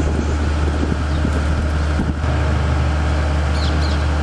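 Wind buffeting the microphone ahead of a monsoon storm: a loud, steady low rumble with a rushing noise above it.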